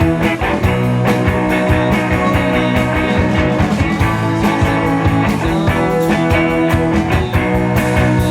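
Live rock band playing an instrumental passage: electric guitars holding chords over a steady, busy drum beat.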